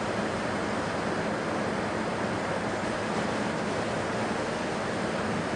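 A steady, even rushing noise with no distinct events, of the kind wind on the microphone or a constant background roar makes.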